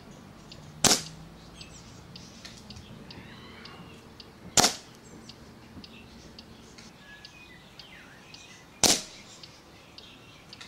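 Air Arms S400 Classic pre-charged pneumatic air rifle firing three shots about four seconds apart, each a short, sharp report.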